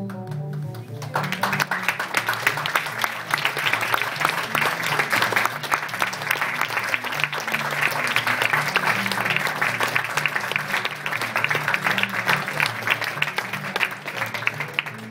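Audience applauding over background music with low held notes. The clapping breaks out about a second in and thins near the end.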